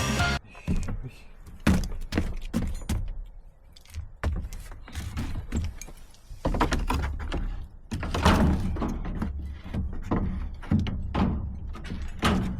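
A series of irregular knocks and thuds, with stretches of low rumble.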